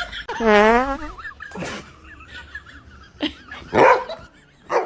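A dog barking in short sharp bursts, four in all, the loudest about four seconds in. Before the first bark, near the start, there is a wavering buzzy tone lasting under a second.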